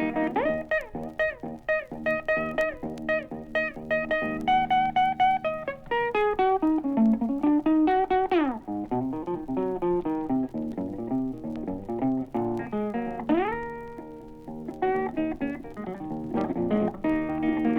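Blues guitar solo between sung verses: single picked notes and short runs, with several notes bent or slid up and down in pitch.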